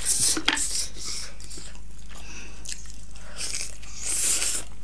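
Close-miked eating sounds: chewing and mouth smacking, with a louder bite into a juicy buffalo-meat momo near the end.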